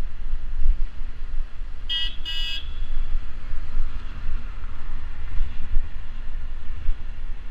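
A vehicle horn sounds two short toots in quick succession about two seconds in, over steady wind buffeting the microphone of a moving bicycle.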